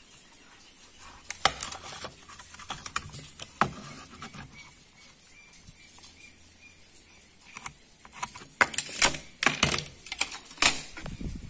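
Scattered clicks and light taps of a steel tape measure and small tools being handled on a wooden pallet board, growing busier and louder in the last few seconds.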